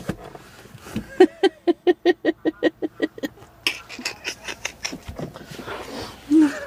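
A person laughing hard in quick rhythmic bursts, about five a second, breaking off into breathy gasps in the middle and starting up again near the end.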